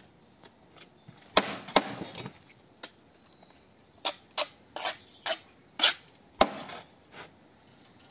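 Steel brick trowel working mortar: a short scrape as mortar is spread, then about six sharp clinks of the trowel blade against a brick as mortar is buttered onto its end and the brick is laid and trimmed.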